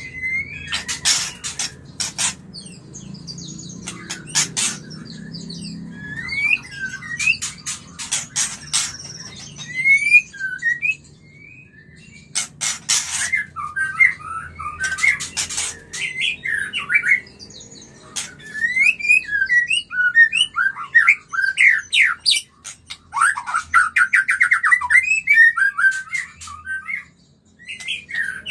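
White-rumped shama (murai batu) giving mating calls: many short rising whistled notes mixed with short noisy bursts, with a dense run of rapid notes about four-fifths of the way through.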